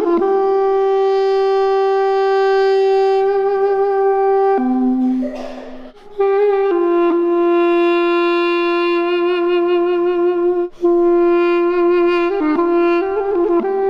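Armenian duduk, the double-reed apricot-wood pipe, playing a slow solo melody of long held notes with small trills and turns. Its line breaks for a breath about five seconds in and dips briefly near eleven seconds.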